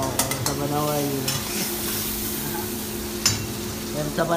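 Tomato gravy sizzling in a frying pan over a gas flame while a spatula stirs it, with a few sharp clicks of the spatula against the pan.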